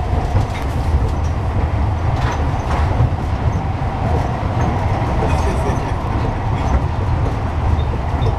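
Cable-pulled airport tram running on rails along its guideway, heard from inside the car: a steady low rumble of wheels and car, with a few faint clicks.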